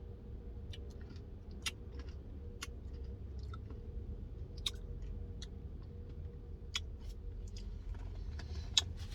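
A person chewing food, with scattered sharp, crisp clicks from the mouth.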